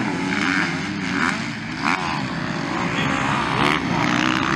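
Motocross bike engines revving on a dirt track, their pitch rising and falling as the riders work the throttle.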